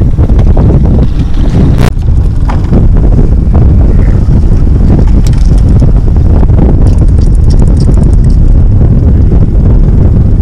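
Wind buffeting the microphone in a loud, steady low rumble. There is a sharp click about two seconds in, and a short run of rapid ticks around the middle.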